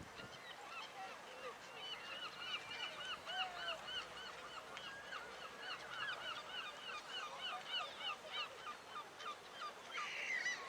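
A flock of birds calling, many short, rapid calls overlapping in a continuous chatter.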